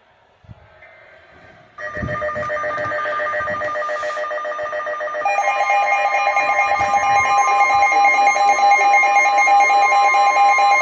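Loud electronic alert tones start about two seconds in: a rapidly pulsing, ringing signal of several steady pitches at once. A second, stronger set of tones joins about halfway through and runs on with the first.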